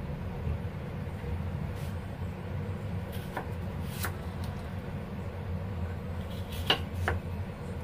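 Kitchen knife knocking a few times on a wooden chopping board as a cucumber is peeled and sliced, with two sharper knocks close together near the end, over a steady low hum.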